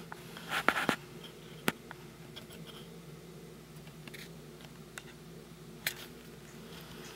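Handheld camera handling noise: a cluster of sharp clicks and a short rustle in the first second, then single clicks about a second and a half later and near the end, over a steady low electrical hum.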